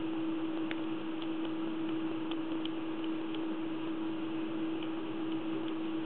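Faint, irregular small metallic clicks and ticks of a dimple pick probing and setting pins inside a Lince C4 dimple lock cylinder, over a steady hiss and hum.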